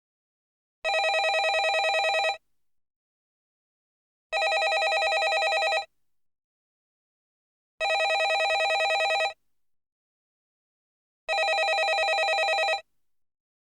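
Landline telephone ringing: four rings, each about a second and a half long with a rapid trill, separated by pauses of about two seconds.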